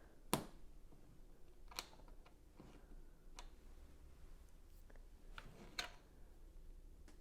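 LEGO plastic pieces clicking and tapping as they are handled and pressed together, a handful of sharp separate clicks, the loudest about a third of a second in.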